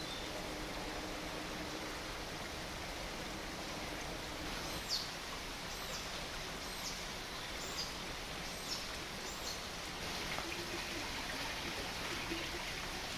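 Outdoor woodland ambience: a steady rushing hiss like running water, with a small bird giving short, high, falling calls about once a second, six times, from about five seconds in.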